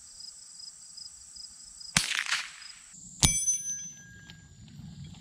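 Suppressed .22 LR bolt-action rifle (Savage FVSR) firing once, about two seconds in. About a second later comes a sharp metallic strike, the loudest sound: the bullet hitting a hanging steel plate, which rings on with several tones that fade away.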